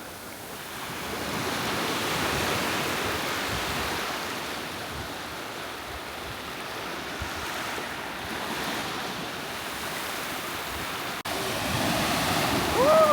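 Surf breaking and washing up on a sandy beach, a steady rush that swells and eases. Near the end a short cry rises and falls in pitch over the waves.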